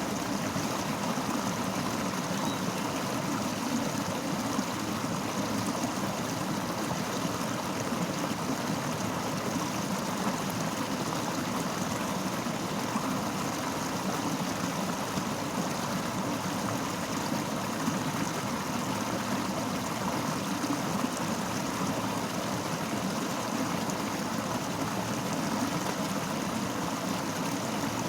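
A fast-flowing river rushing steadily over rocks.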